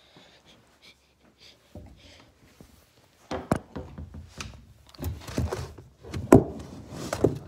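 Handling noise from a phone being carried and moved about: rustling with several sharp knocks and thumps, most of them in the second half, the loudest about three quarters of the way through.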